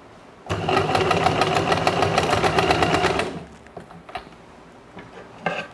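Usha Dream Stitch electric sewing machine running for about three seconds with a rapid, even needle rhythm as it stitches an elastic strap onto cloth, then stopping; a couple of small clicks follow.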